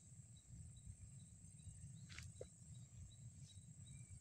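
Near silence with faint insect sounds: a thin, steady high buzz and a soft chirp repeating about two and a half times a second, over a low rumble.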